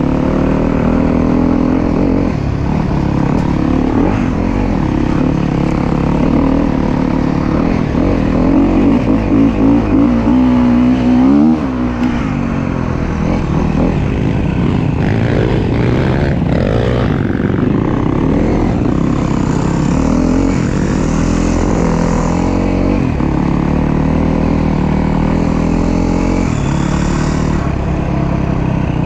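Enduro dirt bike engine running under the rider, revving up in pulses about a third of the way through, then dropping off sharply.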